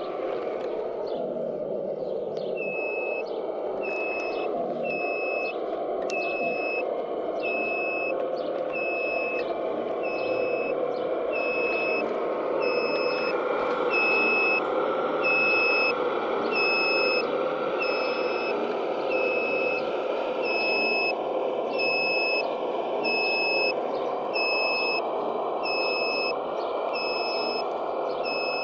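Reversing alarm of a scale RC construction machine, beeping about once a second from a few seconds in, over a steady mechanical whir from the model's motors.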